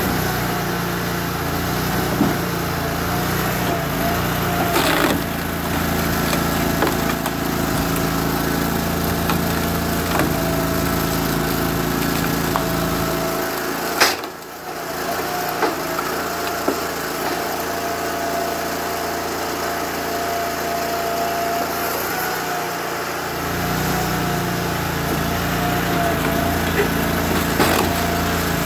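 A 20 hp Honda V-twin engine runs steadily, driving the hydraulic pump of a homemade 24-ton box-wedge log splitter. Its tone wavers and dips as the ram pushes logs through the wedge. A few sharp knocks and cracks of wood being split or dropped stand out, the loudest about halfway through.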